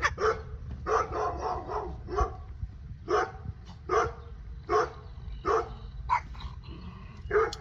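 Cockatoo imitating a dog, giving a string of short barks about once a second, some in quick runs of two or three.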